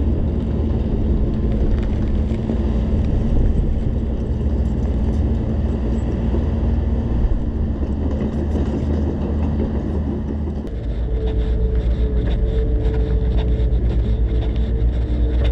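Engine running with a steady low drone. About ten seconds in it changes to a faster low pulsing, with a higher hum that comes and goes.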